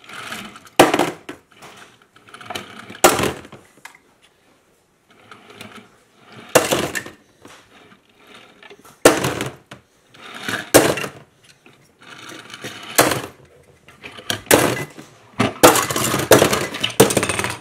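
Die-cast metal toy cars clacking and knocking against one another and a tabletop as they are handled by hand: irregular sharp clatters, coming thick and fast near the end.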